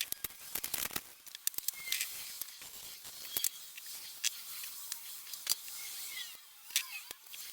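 Small greasy bicycle hub parts being scrubbed in a container of Simple Green cleaning solution: irregular scratching with sharp clicks as the metal pieces knock together.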